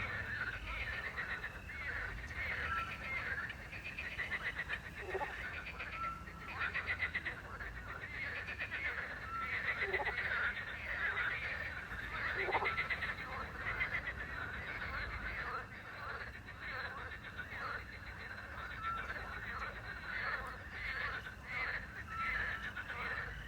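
Frog chorus croaking and trilling without a break, with a small owl (сыч) giving a short whistled note every few seconds and crickets chirping.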